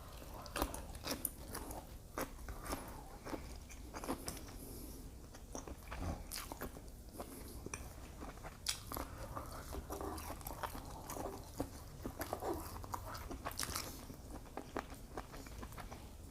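Close-miked mouth sounds of a person eating: irregular wet smacks and clicks of chewing shrimp, mussels and pasta.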